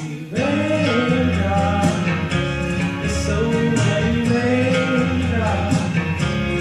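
A song sung with guitar accompaniment: long, gliding sung notes over a steady low backing.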